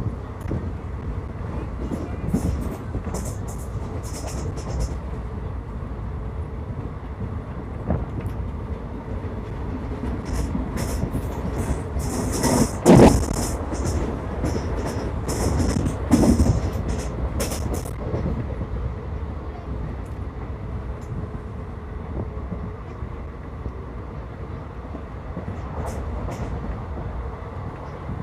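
Passenger train running on the rails: a steady rumble of wheels on track, with scattered knocks and two louder bangs around the middle.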